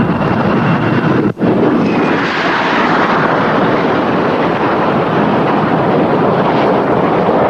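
Military jet aircraft flying low overhead: a loud, steady roar, broken by a brief dropout about a second in.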